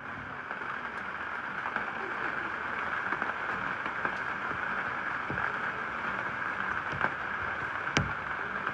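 Steady rain falling, an even hiss with scattered louder drops ticking on a surface, one sharper tick about eight seconds in.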